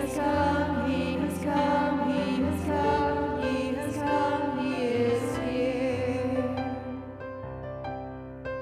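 A slow, gentle song: a voice singing with vibrato over sustained keyboard chords, getting a little softer near the end.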